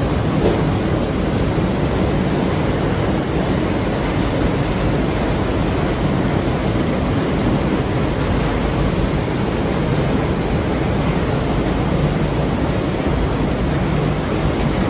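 Rushing water of a partly frozen waterfall, a loud, steady, even rush.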